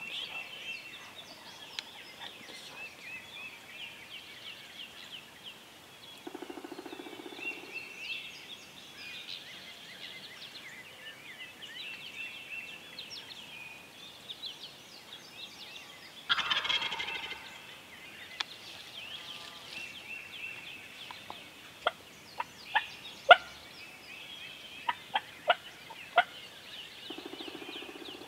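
A wild turkey gobbler gobbling twice, about six seconds in and again near the end, over steady chirping from songbirds. About halfway through there is a single louder call, and later a quick run of sharp clicks.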